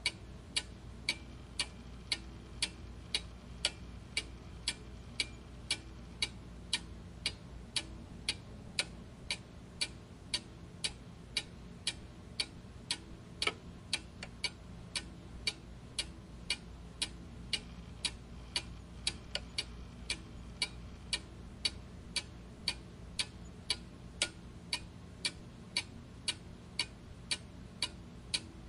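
Clock ticking steadily, about two evenly spaced ticks a second.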